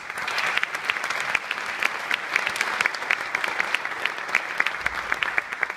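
Audience applauding: a dense run of many hand claps that starts suddenly and keeps up steadily.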